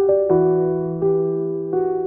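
Background music: a soft electric piano playing slow sustained chords with a bass note, the chords changing about every half second.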